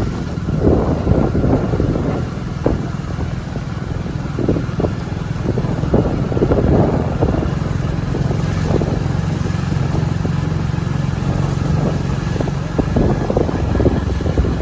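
Motorcycle engine running steadily, with wind buffeting the microphone in irregular gusts.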